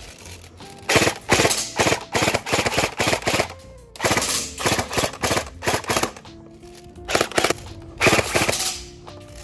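AK-style airsoft rifle firing in several bursts of rapid automatic fire, each a quick run of sharp cracks, with short pauses between them.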